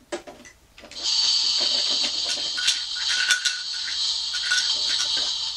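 Barbie Fantastic Food Truck's toy stove top playing its electronic sizzling sound: a steady frying hiss that starts about a second in, with light clicks of plastic play food and cookware.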